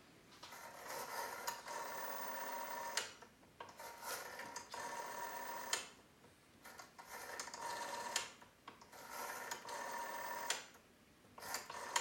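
Rotary telephone dial wound round and whirring back to rest, again and again: a buzzing mechanical whir that ends each time in a sharp click, about five times.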